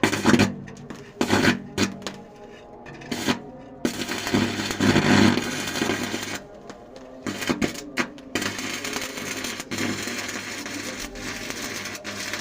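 Arc welding on a steel water tank: sharp metallic clicks and knocks, then stretches of crackling hiss over a low hum, the longest about four seconds in.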